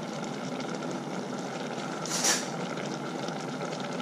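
A pot of curry simmering on the stove, giving a steady bubbling hiss. About two seconds in there is one brief, louder hiss.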